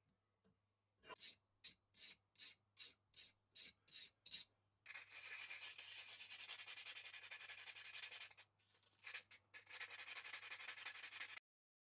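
Hand sanding of a small metal part with sandpaper. It starts as short separate strokes, about two or three a second, then turns into fast continuous rubbing with a brief pause, and stops abruptly shortly before the end.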